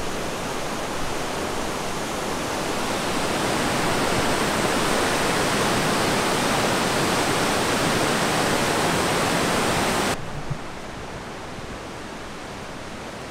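A river in flood, its fast water rushing in a steady loud wash. The rush cuts off abruptly about ten seconds in, leaving a quieter steady outdoor hiss.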